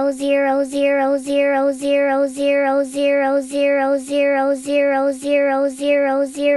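A high singing voice holding one note, looped over and over in identical short chunks about twice a second, like a chopped meme sound.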